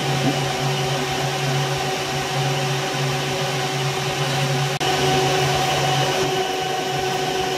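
Small metal lathe running steadily, a motor-and-gear hum with several steady tones, as it machines a metal bar held in its chuck. There is a brief dropout about halfway, and the lowest tone drops away near the end.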